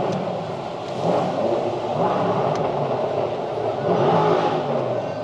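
Mercedes-AMG A35's turbocharged four-cylinder engine heard from inside the cabin as the car accelerates. The engine note rises and drops several times, and it gets louder about a second in.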